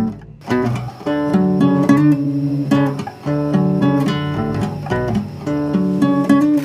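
Background music played on acoustic guitar, with picked and strummed notes in a steady rhythm. It breaks off briefly just after the start.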